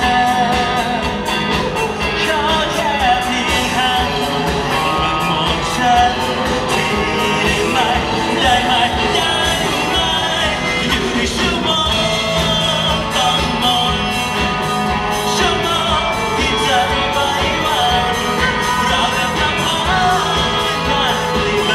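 Live band playing a pop-rock song with a lead vocal, drums keeping a steady beat.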